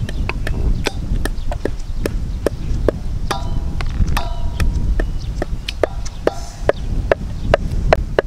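Knife chopping raw chicken gizzards on a wooden cutting board: a run of sharp, irregular knocks, about two or three a second.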